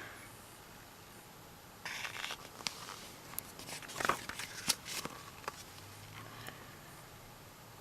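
Soft paper rustling and a scatter of small clicks and taps as an album's photobook is handled and its pages turned.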